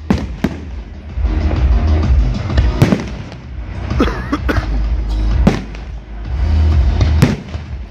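Fireworks shells bursting in the sky, several sharp bangs at irregular intervals over a continuous low rumble, with music playing behind.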